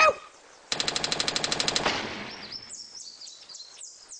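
A fast rattle of sharp clicks, about a dozen a second, starts about a second in, lasts about a second and dies away. Then birds chirp with short, high, falling notes.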